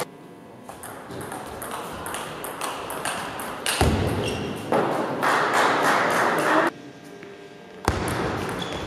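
Table tennis rally: the ball clicks sharply off paddles and table in quick runs of hits. A burst of crowd noise in the hall comes in around the middle.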